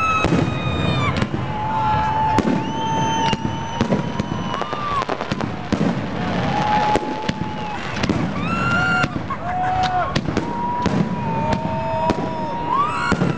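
New Year fireworks going off in quick succession: many sharp bangs and crackles mixed with overlapping whistling rockets, their whistles holding a pitch for a second or two and then bending up or down.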